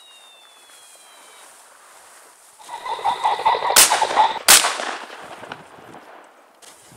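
A shotgun fired twice in quick succession, the two shots about two-thirds of a second apart, each with a ringing tail. From a little before the shots, a rapid rattling noise runs underneath.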